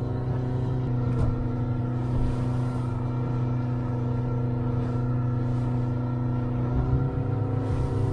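Boat engine running steadily under way, a constant low hum with a slight shift in pitch about seven seconds in, heard from inside the small pilothouse cabin.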